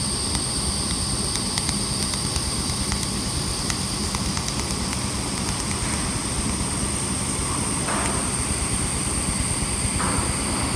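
Handheld laser welding machine running with a steady whir and high-pitched whine, with faint scattered ticks in the first few seconds.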